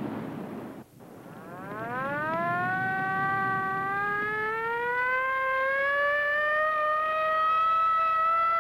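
Rushing water of river rapids that cuts off about a second in. It is followed by a single long tone with overtones that slides slowly upward for several seconds and then holds steady.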